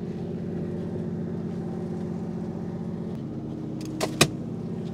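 Fishing boat's engine running steadily with an even low hum. Two sharp knocks on deck about four seconds in, the second louder.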